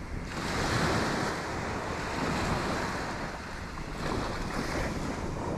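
Small shorebreak waves washing up onto the sand, with wind buffeting the microphone; the wash swells about half a second in.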